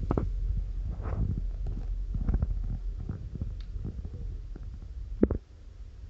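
Microphone handling noise from a handheld phone being moved about: low rumbling with scattered light knocks and clicks over a steady low hum, and one sharper knock about five seconds in.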